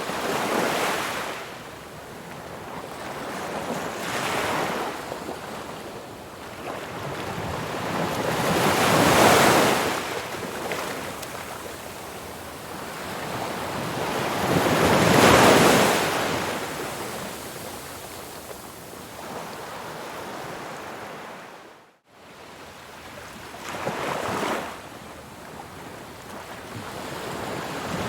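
Ocean waves washing onto a shore in slow, repeated surges, each building and then fading over a few seconds, with the biggest breakers about a third and halfway through. The sound cuts out for an instant about two-thirds of the way through.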